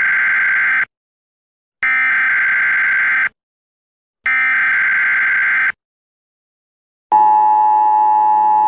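Emergency Alert System warning tones: the end of one burst and then two more bursts of the SAME digital header data, each about a second and a half long and a second apart, followed about seven seconds in by the steady two-tone attention signal.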